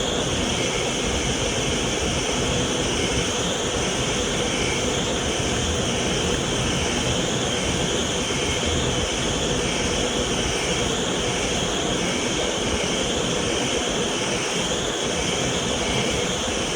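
Vacuum cleaner motor running steadily: a constant rushing whine of air and motor with no change in speed.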